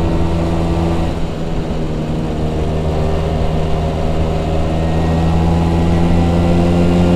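Vespa PS 150 scooter's two-stroke single-cylinder engine running under way in third gear, a steady note that dips briefly about a second in and then holds.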